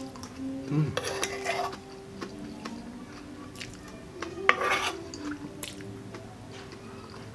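Close-up eating sounds: chewing and mouth noises, with a metal spoon clicking and scraping against the food and the table. There are two louder bursts, about a second in and again around four and a half seconds in.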